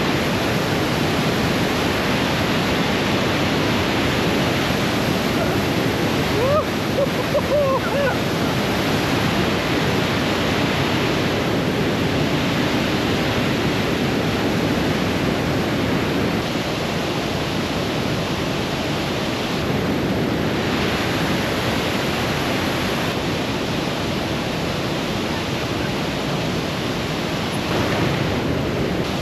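Mountain torrent rushing, a loud, steady wash of white water.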